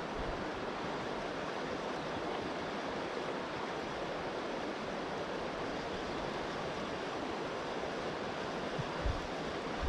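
Fast creek current rushing over rocks at a break in the water, a steady rush, with a short low bump about nine seconds in.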